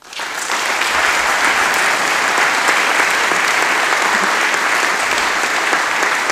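Audience applauding: the clapping starts suddenly, reaches full strength within about half a second and then holds steady.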